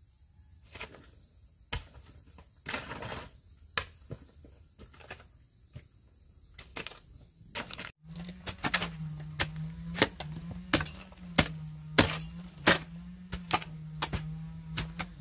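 Faint insect chirring with scattered clicks and taps. About halfway through, a steady low motor hum starts abruptly, with sharp clicks about every two-thirds of a second over it.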